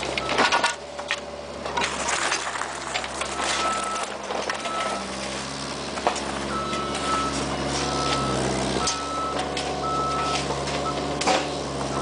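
Diesel heavy equipment running, with its pitch shifting about nine seconds in, while a backup alarm beeps repeatedly. Steel rakes and shovels scrape and strike the gravel bed, loudest near the start and again near the end.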